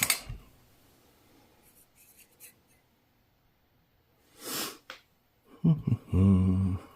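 A man's short, breathy sigh about halfway through, then a brief low hummed "hmm" near the end.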